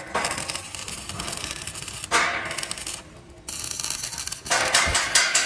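Irregular clattering knocks and scraping, as of hard materials being handled or worked, with a short lull about three seconds in.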